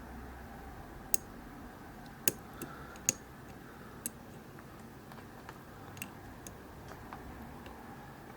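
Steel lock pick and tension wrench clicking and tapping inside a Vachette V5 pin-tumbler euro cylinder during picking: sharp, irregular small clicks, several in the first few seconds and fewer and fainter after.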